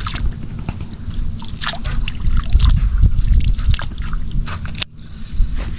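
Water dripping and sloshing, with scattered small clicks and knocks over a steady low rumble; the level drops suddenly about five seconds in.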